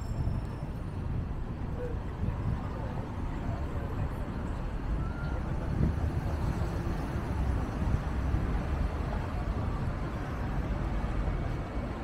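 City street ambience: a steady low rumble of traffic and wind on the microphone, with no distinct events.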